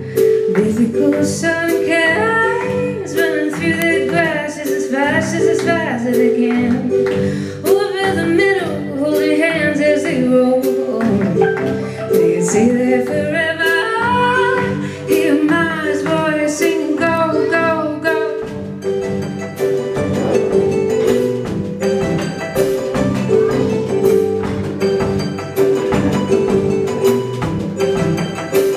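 Live pop band playing: a woman sings over sustained keyboard chords, electric guitar and drums. Her voice drops out about two-thirds of the way through and the band plays on instrumentally, with the drums more prominent.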